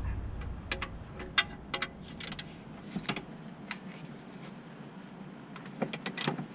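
Scattered light metallic clicks and taps of a wrench being worked on the oil drain plug of a 2019 Hyundai Ioniq, coming at irregular intervals. The plug is stuck fast, put on way too tight.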